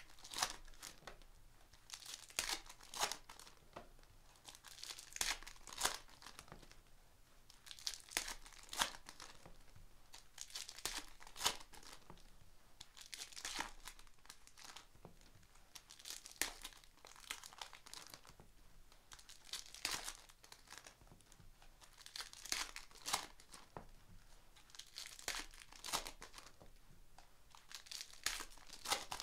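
Foil wrappers of Panini Donruss basketball trading-card packs being torn open and crinkled by hand, in crackling bursts every few seconds.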